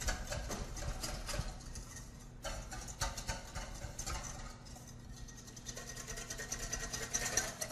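Wire whisk beating an olive oil and lemon juice dressing in a stainless steel bowl: a fast, even clicking rattle of the wires against the metal as the oil and acid are emulsified.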